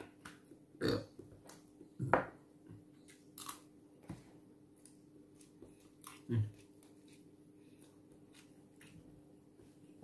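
Close-up eating sounds: chewing, with faint spoon clicks. Three short, low throaty sounds that drop in pitch come about a second in, about two seconds in and after six seconds.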